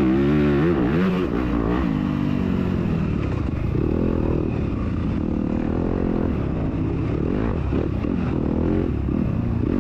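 2021 Yamaha YZ250FX's single-cylinder four-stroke engine running hard at race pace, its pitch rising and falling as the throttle is worked, with the biggest swings in revs in the first couple of seconds.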